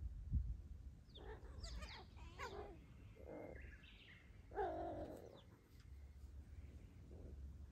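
A cat meowing several times in short calls, the loudest a little past halfway, after a low thump at the very start.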